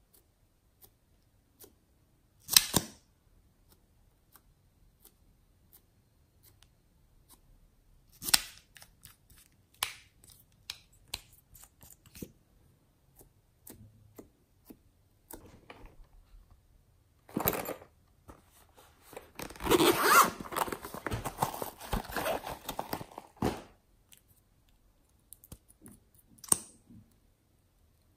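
Sticky clicks and crackles of glossy slime being worked with small applicator wands. The sounds come as scattered single clicks, with a denser stretch of crackling about two-thirds of the way in.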